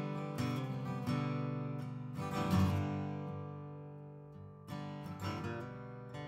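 Background music: strummed acoustic guitar with no singing, its chords ringing out and fading between strums.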